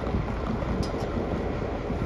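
Diesel locomotive running on the track, a steady low rumble, with two short sharp clicks about a second in.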